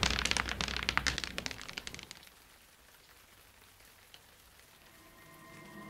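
A rapid, irregular crackle of sharp clicks that thins out and dies away about two seconds in, followed by near silence; a faint low drone with a few held tones creeps in near the end.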